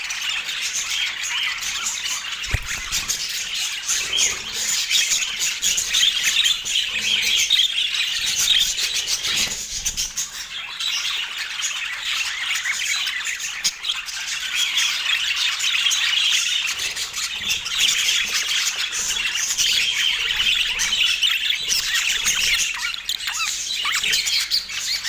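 Budgerigar warbling chatter: a continuous dense stream of short, high chirps and squawks.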